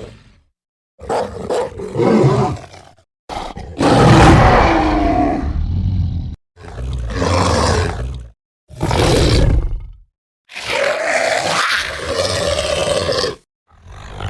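Werewolf creature sound effects from film sound design: about five separate roaring cries, each one to three seconds long, with short gaps of dead silence between them. The longest and loudest comes about four seconds in.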